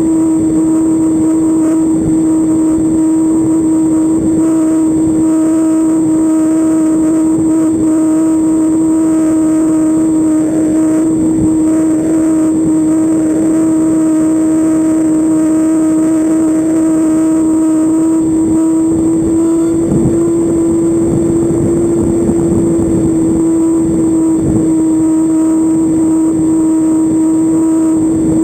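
Two-stroke glow engine and propeller of a .40-size RC trainer airplane running steadily in flight, heard from a camera mounted under the plane, with wind rushing over the microphone. The engine pitch rises slightly about twenty seconds in.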